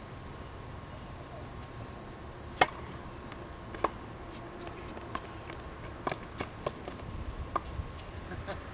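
Tennis balls being struck by rackets and bouncing on a hard court: about a dozen short, sharp pops, the loudest about two and a half seconds in.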